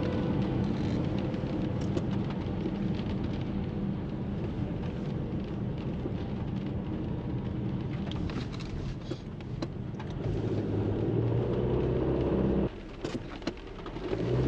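A car running on a wet road in the rain: a steady low engine and road hum over the hiss of rain and spray. Near the end the sound drops away suddenly for about a second, then returns.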